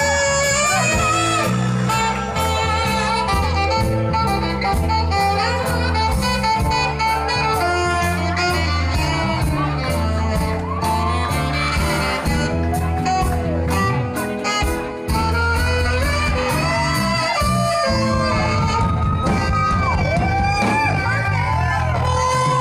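Live band playing an instrumental passage, with horns carrying a melody that bends in pitch over a steady bass line and drum beat.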